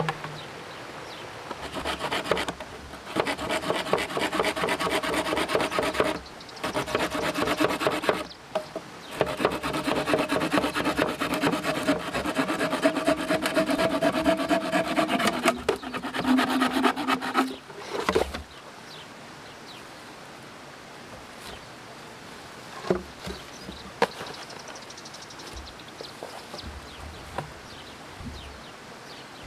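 Hand saw cutting through bamboo in several bouts of quick strokes with short pauses between them, the hollow stalk ringing with a steady note under the teeth. The sawing stops about two-thirds of the way in, leaving a quiet forest background with a couple of sharp knocks.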